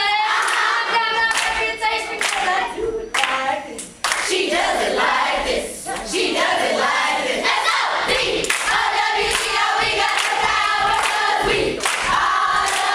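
A group of children and adults singing a chant together, with hand claps keeping the beat. The singing dips briefly about three to four seconds in and then comes back in full.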